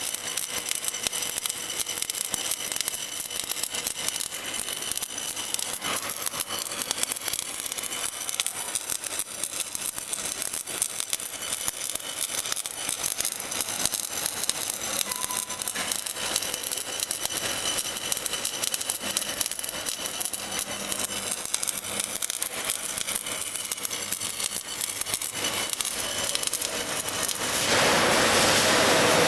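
Welding arc of an automated torch on an oscillating welding head, crackling steadily as it welds a steel beam. Near the end a louder, steady hiss takes over.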